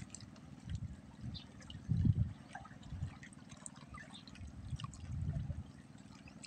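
Water lapping and gurgling against the bamboo poles and floats of a fish-cage raft, with faint scattered drips and small splashes; one stronger low surge about two seconds in.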